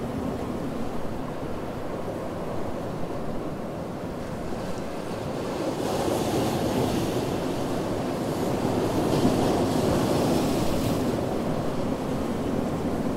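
Ocean surf breaking on a beach: a steady low rush of water, with a wave breaking and washing in louder, with a rising hiss, from about six seconds in, easing off near the end.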